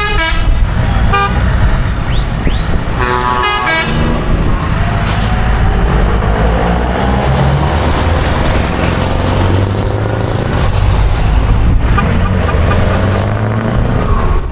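A vehicle horn tooting three times, a short toot, a brief one and a longer blast, within the first four seconds, over the steady low rumble of engines and tyres on the road.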